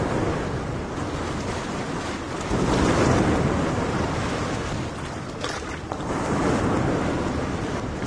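Small waves washing onto a sandy beach, with wind buffeting the microphone; the noise swells twice and eases between.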